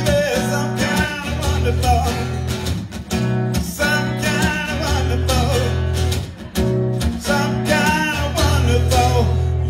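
A man singing a soul-rock song live over a strummed acoustic guitar, the strums keeping a steady rhythm under a full low end.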